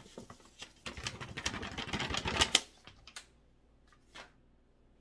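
Dry loose-leaf green tea rustling and crackling on a sheet of paper as it is handled: a dense run of rapid small clicks for about two seconds, followed by a few isolated ticks.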